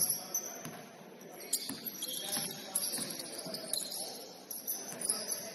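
Basketball game in a gym: the ball bouncing now and then on the court, high sneaker squeaks, and faint players' voices.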